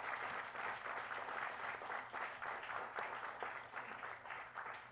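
Audience applauding; the clapping thins out and fades toward the end.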